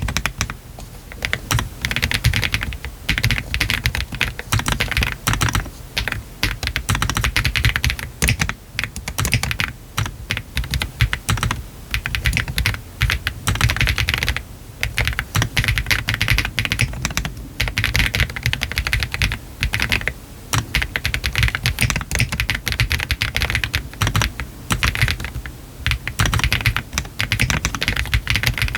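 Continuous fast typing on a Meletrix ZOOM TKL mechanical keyboard with Y3 switches, its case foam removed, on a PC flex-cut plate with PBT keycaps. The keystrokes are dense and rapid, with short pauses every few seconds.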